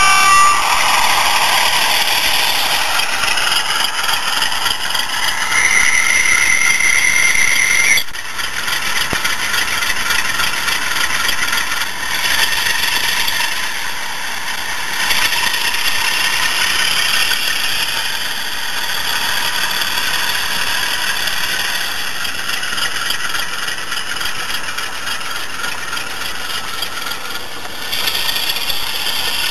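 Model British Rail diesel locomotive's DCC sound decoder playing a diesel engine running, over the rattle of the model train rolling along the track. A steady high whine sounds for about two seconds some six seconds in.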